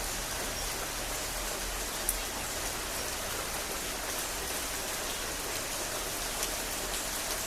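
Heavy, steady rain falling, an even hiss with no letup, and one short sharp tick about two seconds in.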